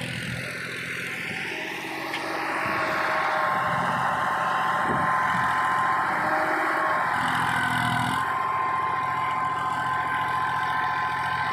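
Massey Ferguson 241 backhoe loader's diesel engine running steadily, picking up revs about two seconds in and holding there.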